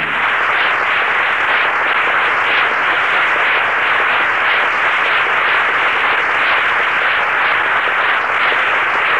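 Studio audience applauding steadily as the closing song ends, heard on an old, narrow-band radio broadcast recording.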